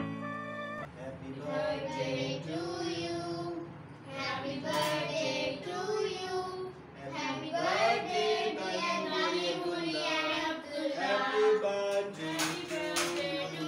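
Children singing together, several voices, with a few sharp hand claps near the end.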